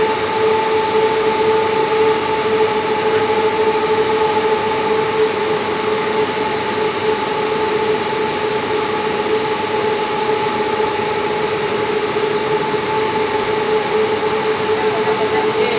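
Steady industrial machinery noise: a loud, unchanging drone with two steady hum tones over a broad rushing noise, from plant equipment running in an electrical switch room.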